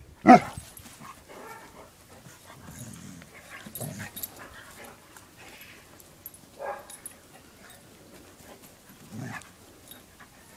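Two dogs, a husky-type dog and a Rottweiler, play-fighting: one loud bark just after the start, then a few quieter short dog vocalisations a couple of seconds apart.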